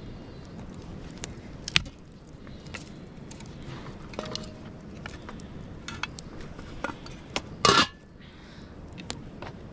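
Cooking pots and utensils clinking and knocking now and then, with one louder, longer clatter about three-quarters of the way through.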